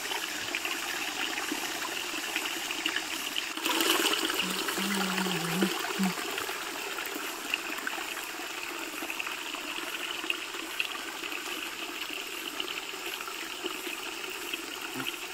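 Thin trickle of a small forest spring falling over rocks into a shallow pool: a steady splashing trickle, briefly louder about four seconds in.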